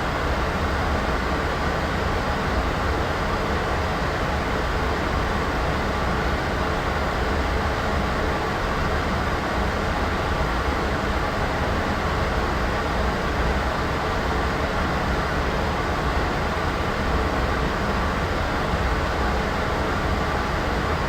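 Steady, unchanging noise with no tones or events, heavier in the low and middle range than at the top, like a constant rumbling hiss.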